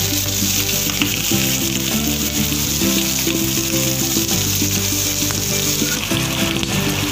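Whole pomfret frying in oil in a pan, a steady sizzling hiss, with background music playing over it.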